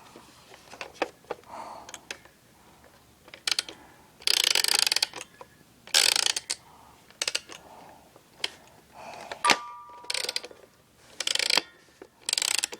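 A wind-up toy's clockwork mechanism ratcheting in about eight short rasping bursts, with sharp clicks in between and one click a little past halfway that rings briefly.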